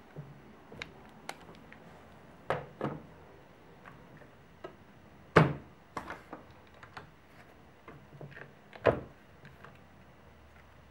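Metal cup hinges and their base plates being handled on a wooden panel: a scattering of sharp clicks and light knocks as the parts are set down and fitted, the loudest about five and a half and nine seconds in.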